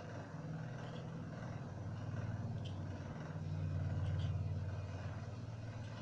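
A low mechanical drone that swells to its loudest about four seconds in and then eases off, with a few faint small clicks from fingers handling a heat-shrink-wrapped coin battery pack.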